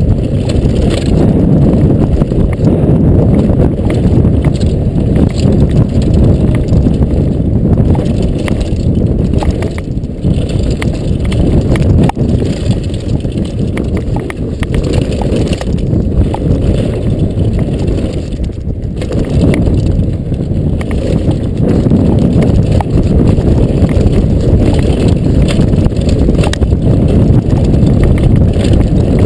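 Mountain bike ridden fast down a rough downhill trail, heard from a camera riding along. A loud, continuous rumble of wind and tyres on dirt is broken by constant rattling clicks and knocks from the chain and frame over rocks and roots, with a brief lull about two-thirds of the way in.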